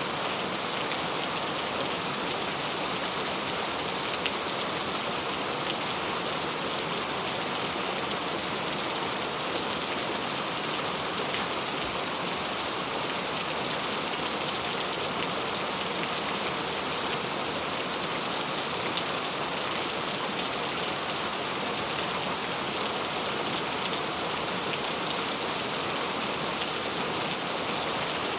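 Steady rainfall: an even hiss of rain with scattered faint drop ticks.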